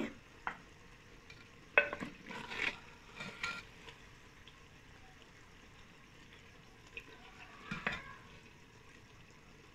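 Wooden spoon scraping and knocking against a clay cooking pot as thick curry is ladled out into a clay serving dish: a few scattered knocks and short scrapes with quiet stretches between.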